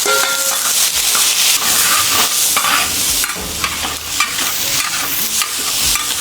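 Food sizzling hard in a hot wok while being stir-fried, with the spatula scraping and tossing it in quick, irregular strokes.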